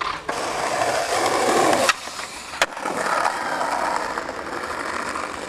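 Skateboard wheels rolling over paving, broken by two sharp clacks of the board about two seconds in, after which the rolling carries on and slowly fades.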